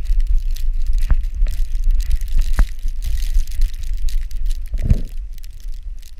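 Microphone of an action camera on a running husky's back: a loud, steady low rumble of wind and jostling, with scattered crackles and knocks of snow and fur brushing the camera, and a short dull thump about five seconds in.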